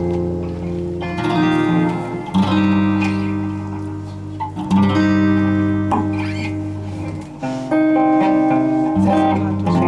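Guitar playing held chords that ring out, the chord changing every second or two with a fresh strum.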